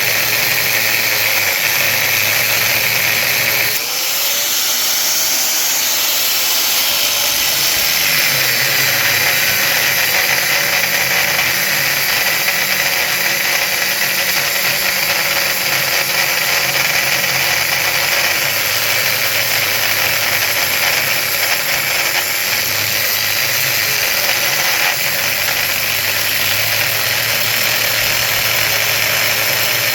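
Power tool running steadily as it cuts through the casing of a large electric motor, easing off briefly about four seconds in and then carrying on.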